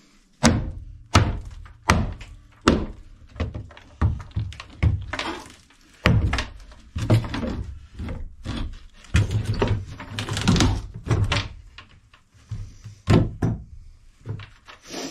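Hammer blows on the wooden boards and framing of an old wooden boat's interior, knocking a panel loose. A string of sharp thunks, about four in the first three seconds, then more irregular and bunched together.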